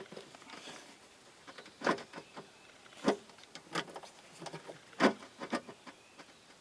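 A few scattered sharp clinks and knocks, about five of them, of hands and tools working a skid-steer's drive-chain tensioner.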